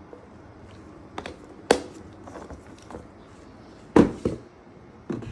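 Plastic clicks and knocks from handling the clean water tank of a Roborock S7 MaxV robot vacuum dock: a couple of light clicks, then a louder knock about four seconds in.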